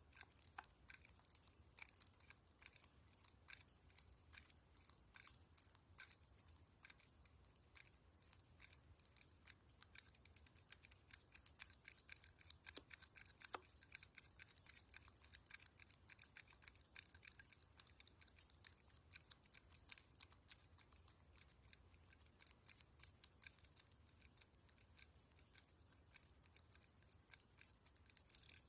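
Rapid, crisp clicking close to the microphone, several clicks a second in an even run, mostly high-pitched, like small scissors snipping.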